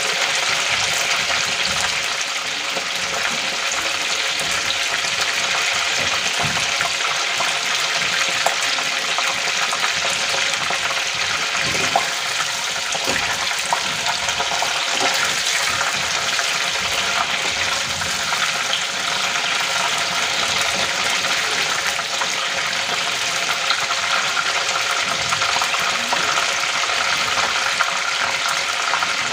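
Soya chunks deep-frying in hot oil in a kadai, a steady crackling sizzle. A few light clicks around the middle as a slotted spoon stirs them against the pan.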